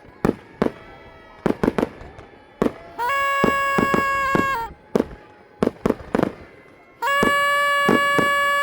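Fireworks going off with repeated sharp bangs, while a train horn sounds two long, steady blasts, the second starting near the end.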